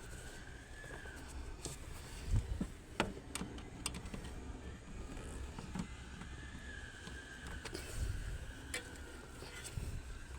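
Scattered small plastic clicks and taps as car wiring connectors are unlatched with a screwdriver and pulled free, a few sharp ones about 2 to 4 seconds in and again near the end.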